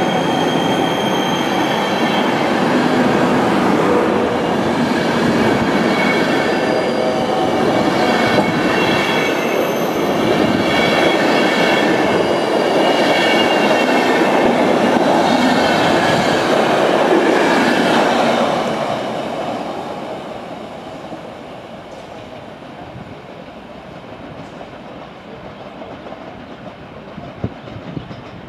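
Passenger train coaches rolling past close by: a loud, steady clatter of wheels on rail with high ringing tones over it. About two-thirds of the way through it fades as the tail of the train draws away, with a few sharp clicks near the end.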